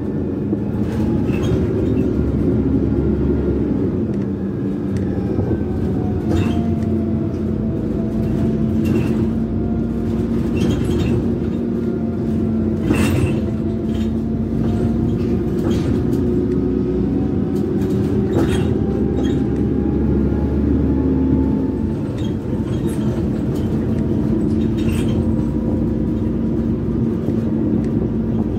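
Karsan Bredamenarinibus Avancity+L CNG city bus heard from inside the cabin while driving: a steady engine and drivetrain drone with a fainter whine that falls and rises in pitch as the speed changes. Scattered rattles and knocks from the bus body come through it.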